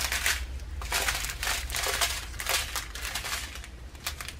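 Small plastic bags of diamond painting drills crinkling as they are picked up, handled and set down again, in a quick string of short rustles.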